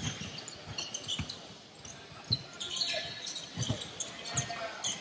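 Basketball being dribbled on a hardwood gym floor, thumping irregularly, with short sneaker squeaks about two and a half to three seconds in. The sound rings in the large hall.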